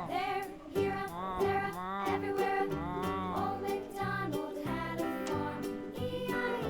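Children's music with a singing voice and a steady beat.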